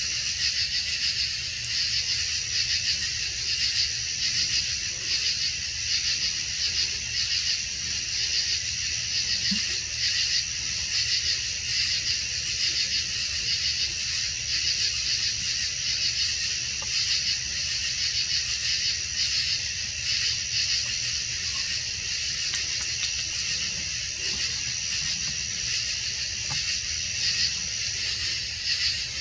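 Night insect chorus: a dense, rapidly pulsing high-pitched trill with a steady high whine above it, over a constant low rumble. The whine stops near the end.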